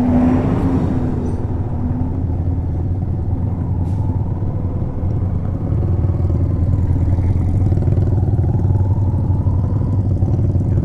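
Motorcycle engine running steadily at low speed, with road noise, on a badly broken road surface.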